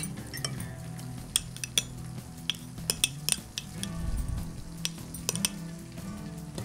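A spoon clinking and scraping against a small glass as tartar sauce is spooned into it, with separate sharp clinks every second or so. Under it, a steady sizzle of fish frying in oil.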